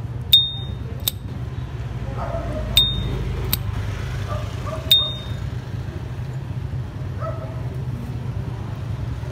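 S.T. Dupont lighter's metal lid flipped open and shut three times: each opening gives the brand's bright ringing 'cling', and each closing a plain click under a second later. A steady low hum sits underneath.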